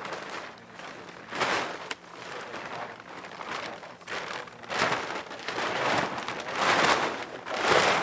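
A large camo tarp being unfolded and shaken out, its sheeting rustling and crinkling in several swells that grow louder in the second half.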